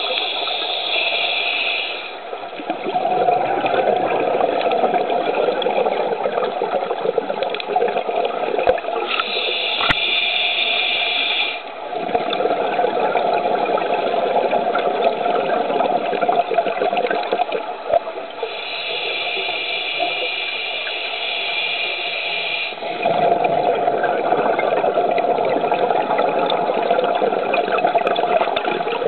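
Scuba diver breathing through a regulator underwater. A hissing inhale of two to four seconds alternates with about six seconds of bubbling exhale, in three full breaths.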